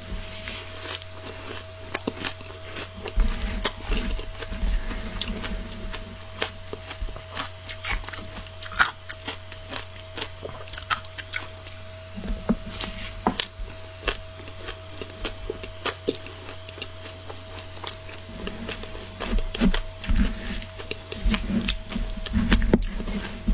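Mouthfuls of matcha-powdered shaved ice being crunched and chewed close to the microphone, with many sharp crackling crunches, and a metal spoon digging into the ice. A faint steady hum runs underneath.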